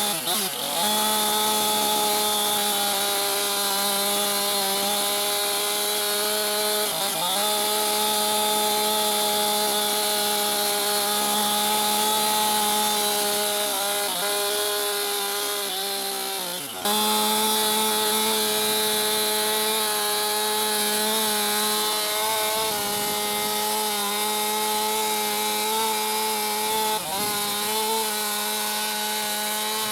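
Chainsaw running at high revs while cutting into a log along a scribe line. Its engine speed dips briefly a few times, most sharply a little past halfway, then picks back up.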